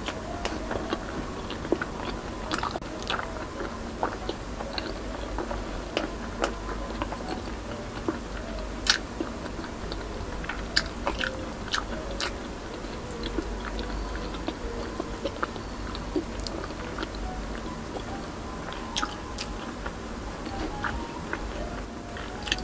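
A person biting and chewing pieces of fried tilapia, heard up close, with frequent short sharp clicks and crunches from the mouth.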